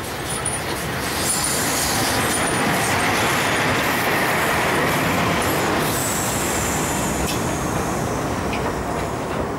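Prussian P8 steam locomotive passing close under steam, towing a diesel shunter. A loud rushing and rumbling train noise builds over the first second or two, holds through the middle and eases off near the end, with a thin high whine sliding down about six seconds in.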